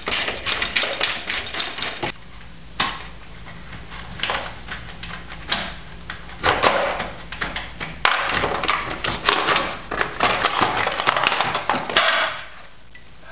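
Socket ratchet clicking in repeated runs of fast clicks as bolts are undone, broken by short pauses, stopping about a second before the end.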